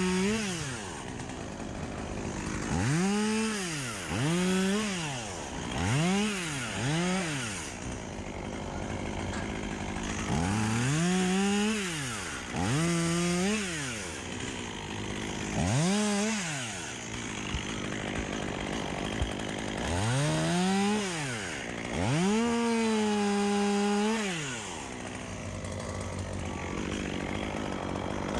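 Chainsaw revving up and dropping back to idle about ten times in short bursts, with a longer run at full throttle near the end, as it cuts black poplar branches.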